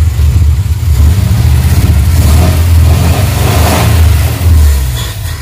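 Mitsubishi Colt T120's engine running with the revs rising and falling, as aerosol cleaner is sprayed into it.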